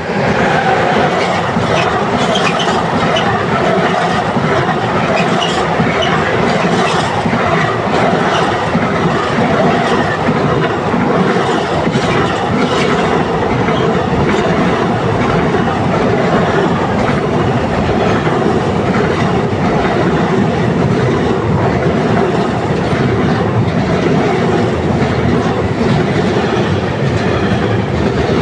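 Intermodal freight train rushing past close by, behind a class 186 electric locomotive: a loud steady rolling rumble of container and trailer wagons, with the wheels clacking in a steady rhythm over the rails. The noise rises sharply right at the start as the locomotive arrives.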